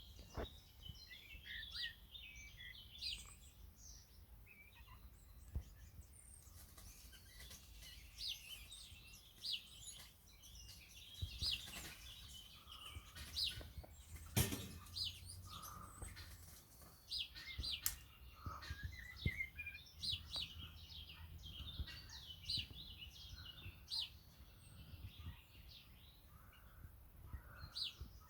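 Eurasian blackbirds calling during a fight: many short, sharp call notes in irregular runs throughout.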